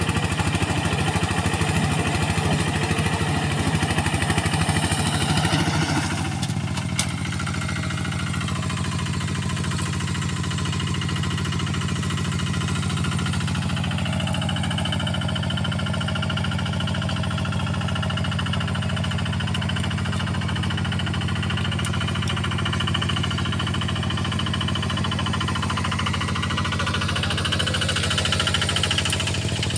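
Quick QH-11 combine harvester's engine running steady, louder and busier for about the first six seconds, then settling into a smoother, slightly quieter run. A single sharp click comes about seven seconds in.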